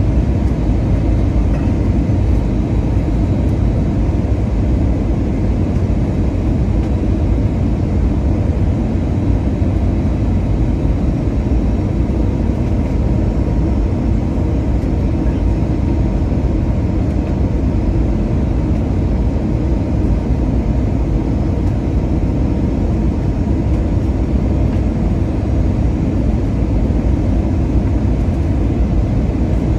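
Airbus A320 cabin noise on approach, heard from a window seat over the wing: a steady, loud rush of jet engine and airflow noise, heavy in the low end, with a faint steady whine above it.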